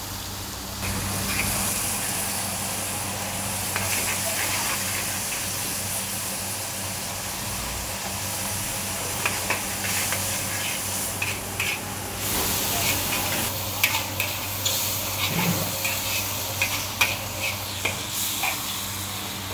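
Char koay teow frying in a wok: flat rice noodles, bean sprouts and prawns sizzle steadily while a spatula stirs and scrapes them. From about halfway through, sharp clacks of the spatula against the wok come more and more often.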